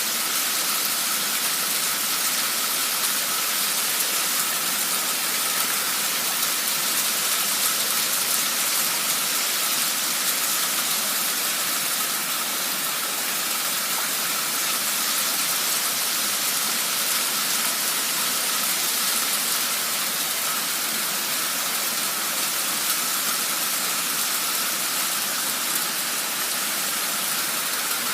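Torrential downpour: heavy rain falling in a steady, even hiss with no letup.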